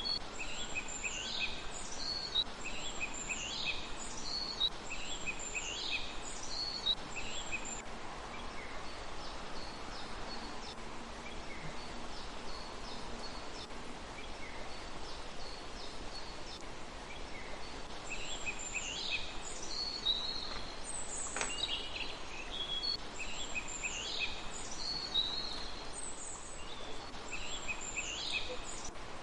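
A songbird calling in a series of high, sharp notes that fall in pitch, about one a second, in two bouts: through the first seven seconds and again from about eighteen seconds until near the end. Under it runs a steady outdoor background hiss.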